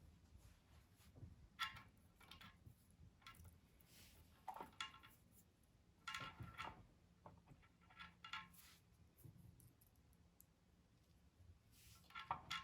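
Near silence: a few faint, scattered clicks and light taps of tools and small parts being handled during scooter controller work, over a low steady hum.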